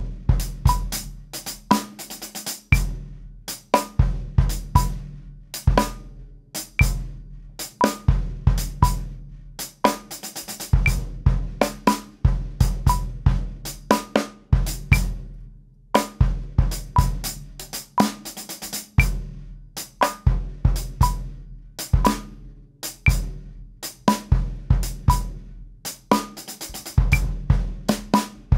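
Acoustic drum kit playing a slow, programmed-style R&B groove at 59 beats per minute. The hi-hat plays dotted-eighth-and-sixteenth figures. The bass drum falls on offbeat thirty-second notes, and the snare plays the backbeat.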